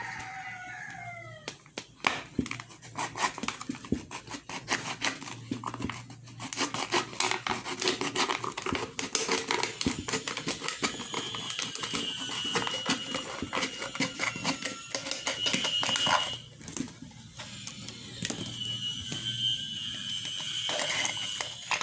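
A knife cutting through a thin plastic soft-drink bottle: a dense run of small crackling clicks as the blade pierces and slices the plastic, pausing briefly near the end.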